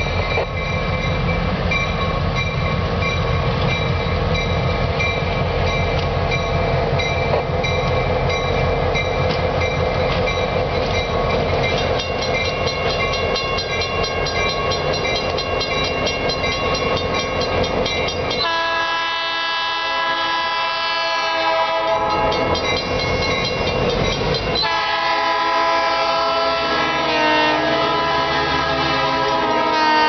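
Diesel freight locomotive engine running hard as the locomotive approaches and rolls past close by. About 18 seconds in, a locomotive's multi-chime air horn sounds a long steady chord. After about 24 seconds a second horn chord, at a different pitch, sounds over the engine noise.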